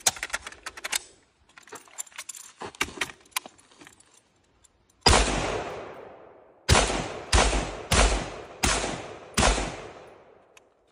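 Metallic clicking and rattling as the semi-automatic M14 rifle is handled, then six .308 rifle shots: one about five seconds in, and five more in quick succession under a second apart, each trailing off.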